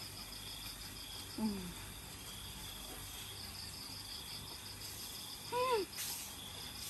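Night insects, crickets, chirring steadily with a fast high pulsing. Over it come two short hummed voice sounds, a brief falling one about a second and a half in and a longer arched one near the end: murmurs of a person enjoying the food as she eats.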